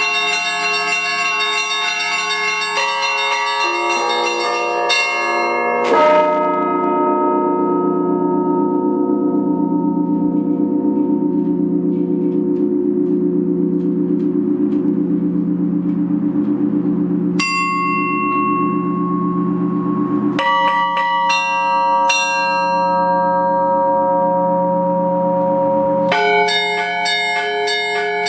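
Russian Orthodox church bells rung by one bell ringer: quick patterns on small high bells over the long ringing of a deep bell. A heavy strike about six seconds in is followed by a stretch where only the deep bell hums, with a single high strike in the middle, and then the fast small-bell chiming starts again twice near the end.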